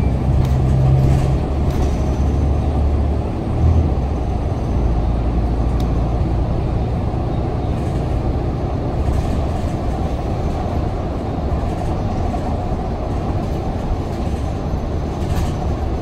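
Inside a moving city bus: the engine's low drone and road rumble as the bus drives along, with one brief thump about four seconds in.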